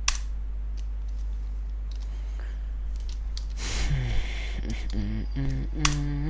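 Single computer-keyboard click just after the start over a steady low hum. From about four seconds in, a man's voice speaks.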